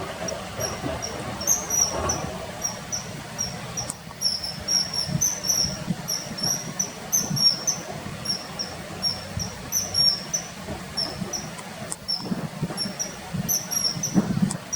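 Common kingfisher calling: a quick, steady run of short, thin, high-pitched notes, about three a second, over a low rumble.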